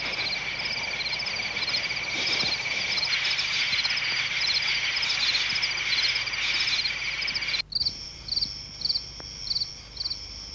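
Night chorus of frogs and insects: a steady high trill under rapid repeated chirps. About three-quarters of the way in it cuts off abruptly and gives way to a quieter chorus of evenly spaced chirps, under two a second, over a thin steady high tone.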